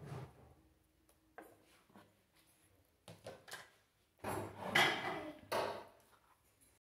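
A wooden spoon knocks and scrapes against a ceramic serving plate of pasta, with scattered light knocks, then a louder stretch of clattering and scraping from dish handling about four seconds in.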